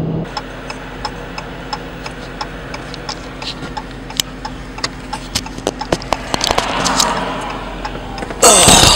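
Inside a stopped Dodge Challenger, a steady engine-idle hum runs under repeated sharp ticking from the indicator flasher. Near the end a sudden, louder rush of noise comes in.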